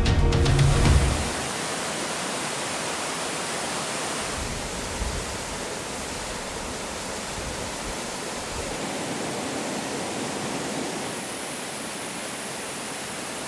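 Background music ends about a second in. It gives way to the steady rushing hiss of water pouring down a rocky cascade.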